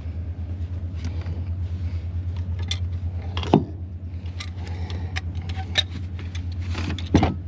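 Metal clinks and knocks of wrenches and gas pipe fittings being handled, with two louder knocks, over a steady low motor hum.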